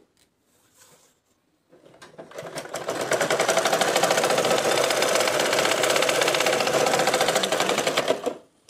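Domestic sewing machine stitching a seam in cotton cloth, the bottom band of a salwar. It starts about two seconds in, speeds up to a steady rapid ticking run, and stops shortly before the end.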